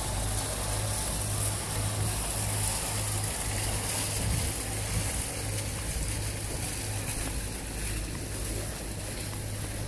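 Marina ambience: a steady low hum with a constant hiss.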